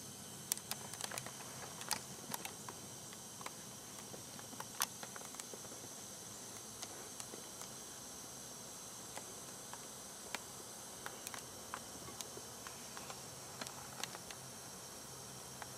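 Quiet woodland with a steady high hiss and drone, likely insects, broken by scattered sharp clicks and light crackles, the loudest about half a second, two seconds and five seconds in.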